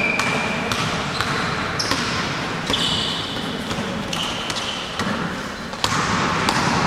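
Basketball bouncing on a gym floor during play, with several short high squeaks of sneakers on the court over the background noise of the game.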